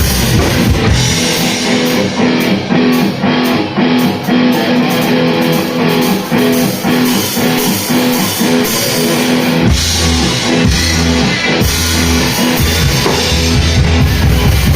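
Rock band playing an instrumental passage on drum kit and electric guitar. The bass and kick drum drop out about a second in, leaving guitar and drums, and come back in strongly near ten seconds in.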